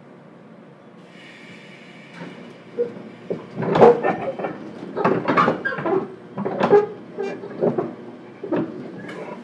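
Cabin sound of a JR Kyushu 415-1500 series electric train moving off slowly. A steady low rumble gives way, about two seconds in, to a run of irregular sharp knocks and clatters from the running gear.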